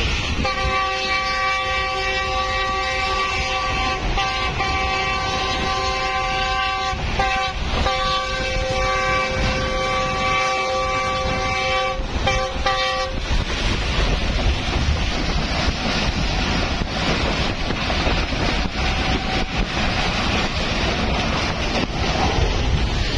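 A train's multi-tone air horn, heard from aboard the train, sounds one long blast of about 13 seconds, rising in pitch as it starts and broken briefly twice before ending in short toots. After it stops, the steady rush of the train running on the track, with wind on the microphone, carries on.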